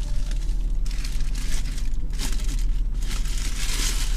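Paper burger wrapper crinkling in the hands in several short bursts as the burger is eaten, over a steady low hum.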